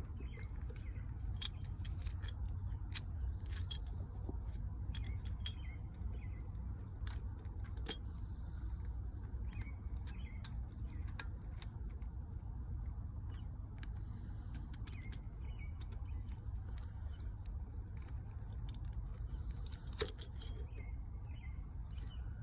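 Scattered small metallic clicks and clinks of hand tools and carburetor parts being handled while the new carburetor is fitted and bolted down, over a steady low rumble.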